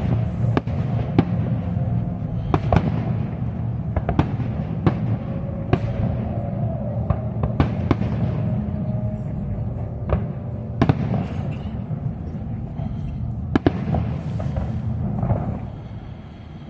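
Aerial firework shells bursting overhead: about a dozen sharp bangs at irregular intervals over a steady low background din.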